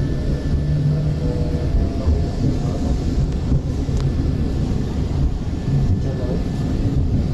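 Steady low rumble of a 5th-generation Peak Tram tramcar running downhill on the funicular, heard from inside the car.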